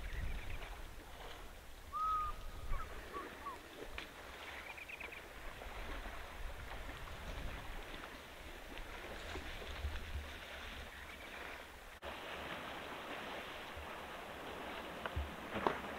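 Elephants wading and splashing in a shallow waterhole, a steady watery outdoor hiss with a low rumble beneath. Brief bird calls come over it: a short whistle about two seconds in and some quick twittering. Near the end a few sharp slaps come as an elephant shakes its head.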